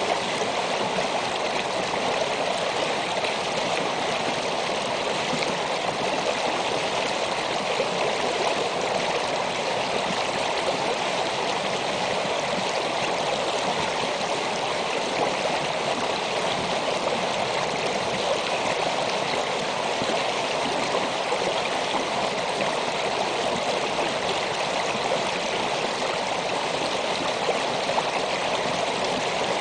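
Small stream flowing over rocks: a steady, even rush and burble of running water.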